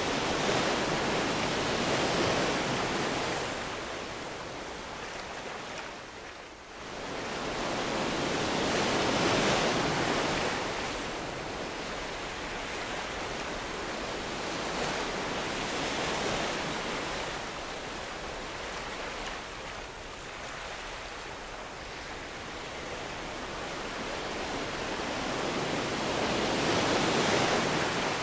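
Sea waves washing onto the beach: a steady rushing that swells and fades every several seconds, dropping away briefly about six seconds in.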